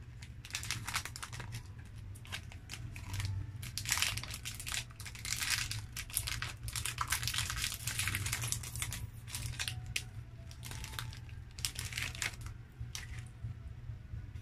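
Plastic snack-cake wrapper crinkling as it is handled and torn open, in a run of irregular crackles that are densest in the middle and thin out near the end.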